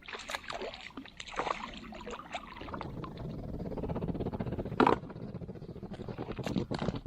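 Water sloshing and gurgling around a small boat, with scattered light knocks and one sharper knock about five seconds in.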